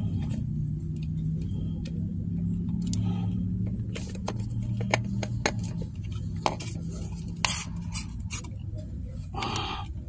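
Fix-a-Flat aerosol can on a tyre valve being handled: repeated plastic clicks and taps from the can, its trigger and hose over a steady low hum. Several short hisses in the last few seconds as sealant spurts through the hose into the tyre.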